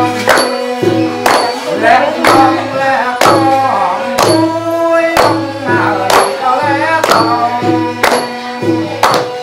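Music with a steady drumbeat, struck about once a second, under a wavering sung or played melody.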